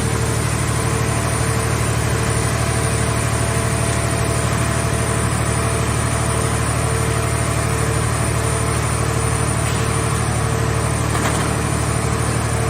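Portable car-body baler's engine running steadily at a constant speed, a continuous low drone with a faint steady hum above it.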